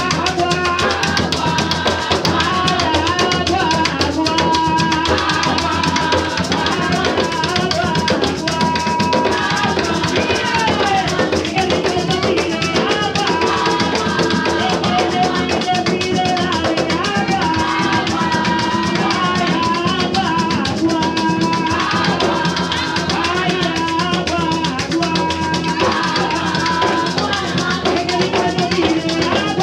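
Live Puerto Rican bomba: barril hand drums playing a steady rhythm with a maraca shaking, under a woman singing long held notes.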